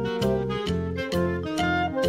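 Background music with a steady beat, about two beats a second: held melody notes over a bass line.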